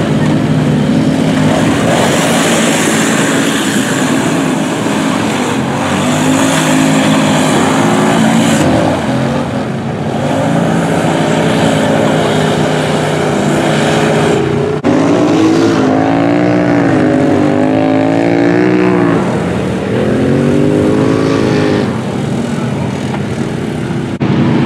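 ATV engines revving hard as four-wheelers churn through a mud pit, the pitch climbing and dropping repeatedly with the throttle.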